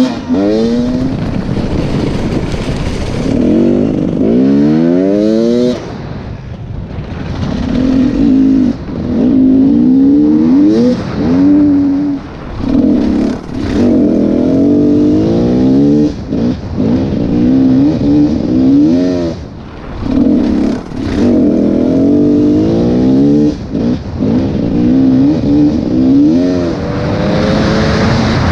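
Enduro dirt bike engine ridden hard, its note climbing in pitch again and again as it is revved through the gears, with brief drops each time the throttle is shut off.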